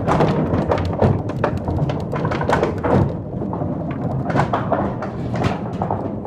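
Iron cannonballs rolling and knocking along the wooden troughs of an 18th-century theatre thunder run: a continuous rumble dense with knocks, the old stage effect for thunder.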